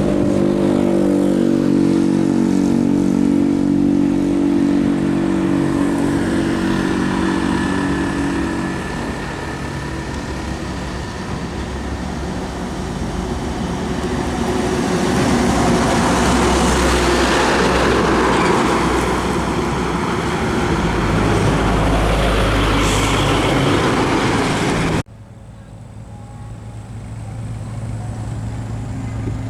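Heavy trucks driving past on a road. A steady engine drone comes first, then a loud rush of engine and tyre noise that swells and fades as a truck goes by. About 25 s in there is a sudden cut to a quieter passing-truck stretch.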